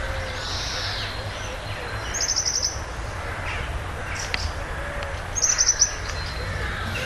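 A small songbird calling twice, about three seconds apart, each call a quick run of about five high chirps, over steady low outdoor background noise.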